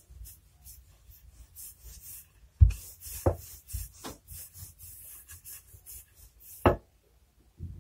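Wooden rolling pin rolled back and forth over two layers of cookie dough on a countertop: quick rhythmic rubbing strokes, two to three a second, with three sharper knocks, the loudest about two and a half seconds in.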